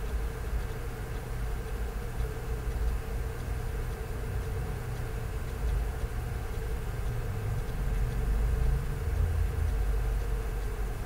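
Industrial overlock (serger) machine running as it stitches a ribbed cuff onto a trouser leg: a steady motor hum over a low rumble, a little louder around eight seconds in.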